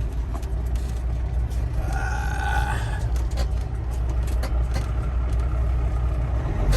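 Semi truck's diesel engine running steadily at low speed, heard from inside the cab, with a short high squeal about two seconds in and a few scattered clicks.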